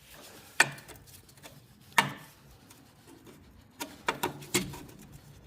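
Sharp clicks and knocks from metal parts being handled on an old snowblower engine around the choke control: two single knocks, then a quick cluster of about five near the end.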